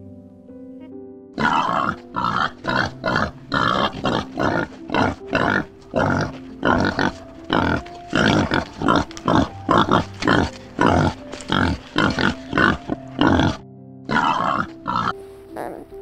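Warthog making rapid, repeated short calls, about two to three a second, over light background music, with a brief pause near the end.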